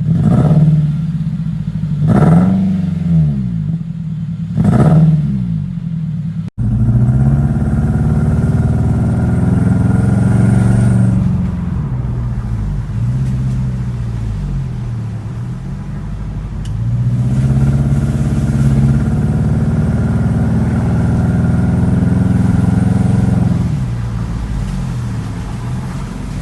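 Honda K20 four-cylinder engine being revved: three quick blips, a brief dropout about six seconds in, then longer revs held for a few seconds at a time with dips between. It runs rough on three cylinders, a misfire the owner puts down to a failed number-three ignition coil.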